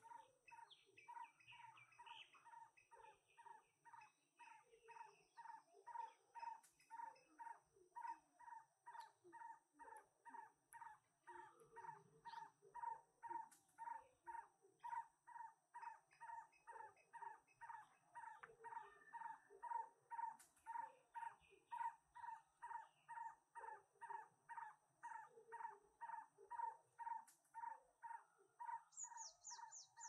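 A faint animal call: one short note repeated evenly, about twice a second, without a break. About a second before the end, a small bird gives a quick high twitter of falling notes.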